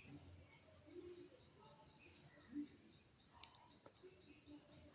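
Near silence, with faint, regular high-pitched chirping of a bird, about four chirps a second.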